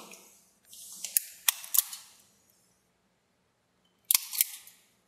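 Hand wire stripper-crimper cutting and stripping a wire: a few sharp metallic snips and clicks about a second in, then another couple of clicks near the end.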